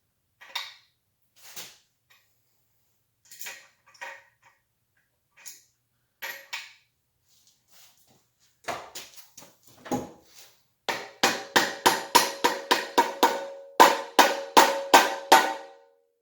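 Hammer striking a metal part: scattered light taps at first, then a fast run of hard blows, about two or three a second, each leaving a metallic ring, as a crooked part is knocked square.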